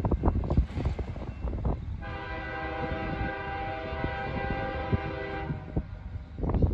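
A distant freight locomotive's air horn sounds one long blast of several tones at once, starting about two seconds in and lasting about three and a half seconds. Wind buffets the microphone in gusts throughout, hardest near the end.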